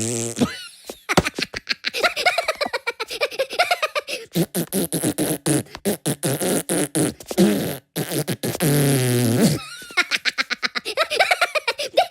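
High cartoon Minion voices blowing raspberries: long buzzing tongue-and-lip flutters, with short giggly pitched bits near the end.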